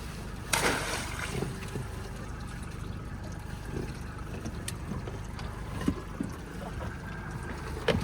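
Low steady rumble of a small boat on the water, with a short burst of noise about half a second in and scattered small knocks and clicks of gear being handled aboard.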